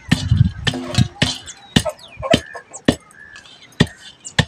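Long wooden pestle pounding dried mahua flowers in an iron bowl: a steady run of sharp knocks, a little under two a second.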